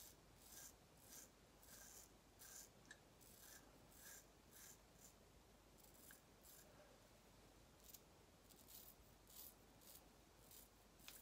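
Straight razor scraping through lathered stubble on the neck in short, faint strokes, about two a second, becoming sparser near the end.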